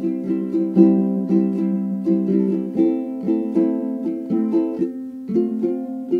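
Background music: a plucked string instrument playing a light tune, about two notes a second.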